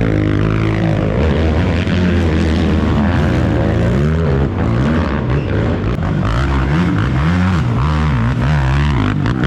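Several racing ATV engines revving, their pitch rising and falling over and over as the riders work the throttle and shift.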